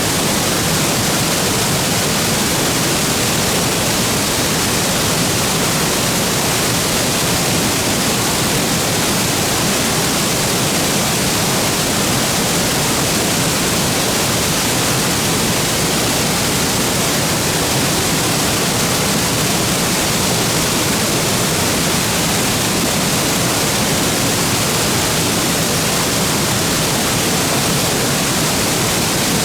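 Waterfall plunging into its pool: a loud, steady roar of falling water with no let-up.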